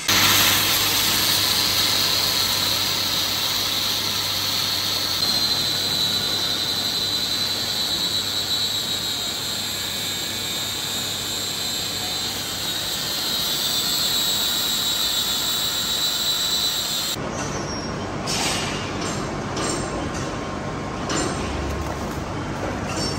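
Steel being cut on a manual lathe: a steady high squeal with a hiss from the cutting tool, over the low hum of the machine. About 17 s in the squeal stops and irregular scraping and knocks follow.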